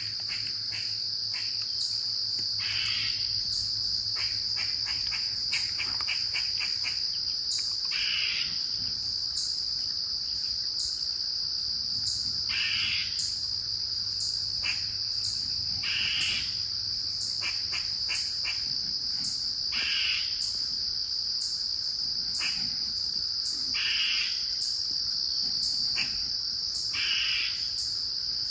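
Steady high-pitched chorus of crickets and other insects. A short call repeats about every three to four seconds over it, with a few quick runs of clicks.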